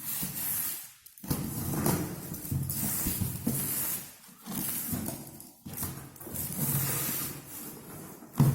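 Cardboard box and packaging being handled and opened: repeated scraping and rustling, with a sharp knock near the end.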